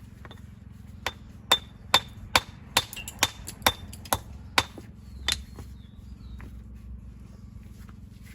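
Stonemason's hammer striking building stone: about ten quick blows, roughly two a second, each with a short metallic ring, over a steady low hum.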